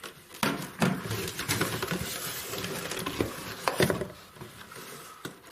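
Packaging rustling and crinkling as kit parts are handled, with a few sharp knocks and clicks; it dies down near the end.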